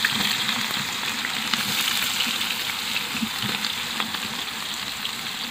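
Sliced onions sizzling as they go into hot oil in a large aluminium pot: a steady frying hiss with scattered small crackles, easing off slightly as the oil cools under the onions.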